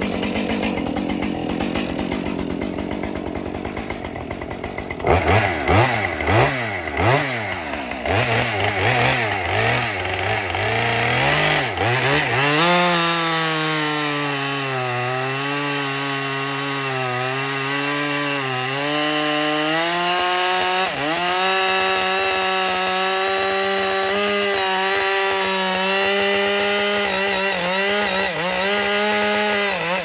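Husqvarna 545 50cc two-stroke chainsaw revved in several short bursts, then held at high revs cutting through a large log, its pitch sagging and recovering as the chain bites.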